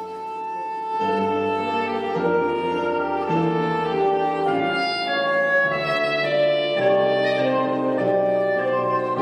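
Soprano saxophone playing a slow melody of long held notes over amplified keyboard chords and a bass line that moves about once a second.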